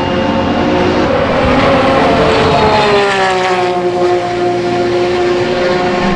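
Several race car engines running at speed on the circuit, heard across the track. About two and a half seconds in, one engine's note falls in pitch and settles lower.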